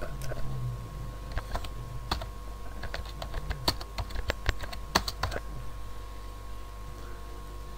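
Computer keyboard typing: a run of keystrokes starting about a second and a half in, quickest between three and five seconds, then stopping.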